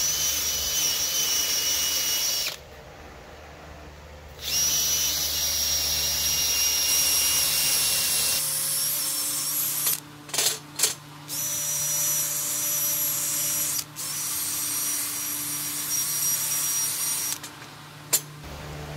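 Power drill spinning a wire wheel brush against the rusty steel slide bar of a Wilton 1755 vise's front jaw, scrubbing off rust and buildup. It runs in several stretches with short stops, cuts off shortly before the end, and a sharp click follows.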